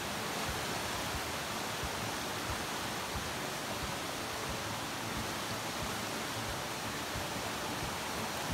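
Steady rushing of a swollen, muddy stream running high and fast.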